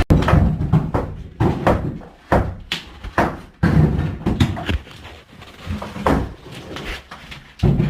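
Sledgehammer blows knocking through a wall: a string of heavy strikes at uneven intervals, each followed by a short clatter.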